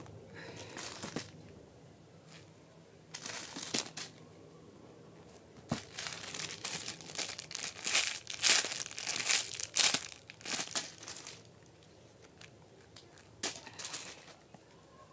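Crinkling and rustling of packaging being handled, in several bursts, the longest running about four seconds from around six seconds in.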